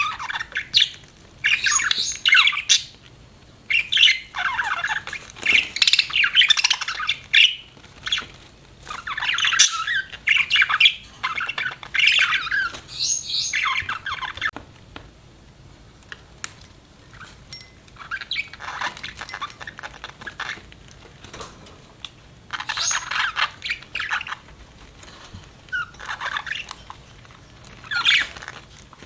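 Budgerigars chirping and chattering in bouts of quick, warbling calls, busiest in the first half, then shorter bursts with pauses between.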